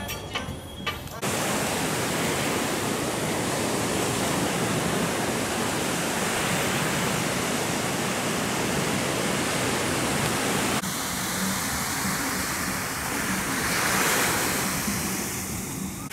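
Surf on a beach: a steady, full hiss of waves breaking, which starts suddenly about a second in. After a cut about eleven seconds in, the hiss is softer and swells briefly near the end.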